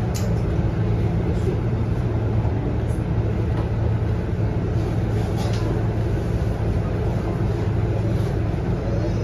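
Diesel engine of a Scania K230UB single-deck city bus, its nine-litre five-cylinder, running at a steady low hum from inside the passenger cabin. A few faint swishes of the windscreen wipers come through now and then.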